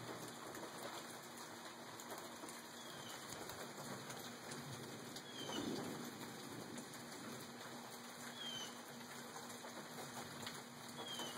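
Steady, faint hiss like light rain, with four short, high chirps, each falling in pitch, spaced a few seconds apart. A soft, low rustle swells a little past halfway.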